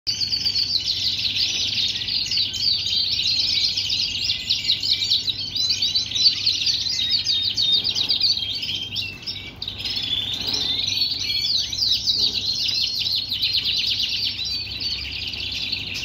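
Male Super Shirazi canary singing: a continuous song of fast trills and rolling phrases, with a brief dip about nine seconds in.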